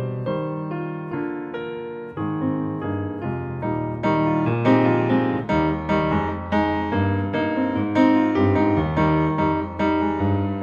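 Piano music, notes struck one after another over held low notes.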